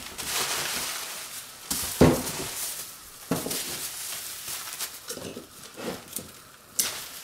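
Bubble wrap rustling and crinkling as it is wrapped and pressed around a bundled item by hand, with a few sharper crackles.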